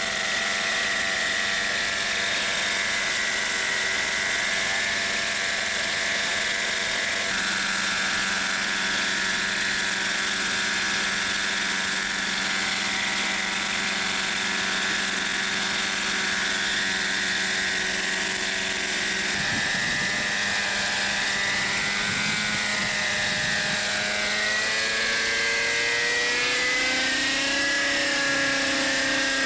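Nitro glow engine and whirring rotor of an RJX Extreme 50 radio-controlled helicopter, running on its break-in. The engine runs at a steady pitch while the helicopter hovers low. From about twenty seconds in, the pitch wavers up and down as it flies around.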